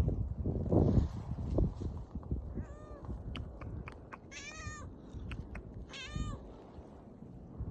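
Stray cat meowing three times, short wavering calls, the first one faint. Wind buffets the microphone with a low rumble, strongest in the first second.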